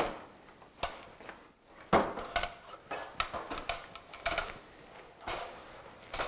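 Aluminum stepladder being moved and climbed: a string of irregular metallic clanks and knocks, the loudest right at the start and about two seconds in.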